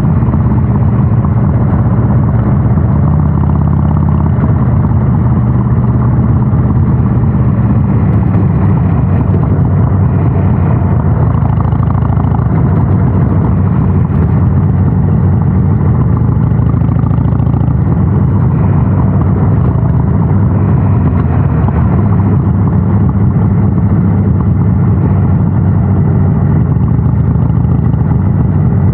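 Harley-Davidson Sportster 883's air-cooled V-twin with North American-spec mufflers, running steadily with a deep, even exhaust note; the note shifts slightly about four seconds in.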